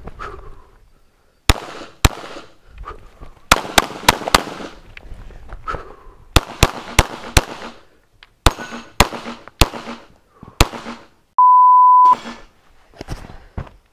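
Glock pistol shots fired during a practical-shooting stage: about fourteen shots in quick pairs and short strings, each cracking with a brief echo. Near the end comes a loud, steady electronic beep lasting under a second.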